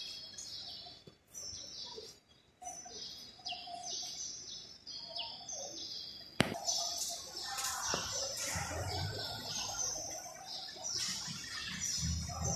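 Many small birds chirping busily, short calls overlapping one after another. A single sharp click about six seconds in.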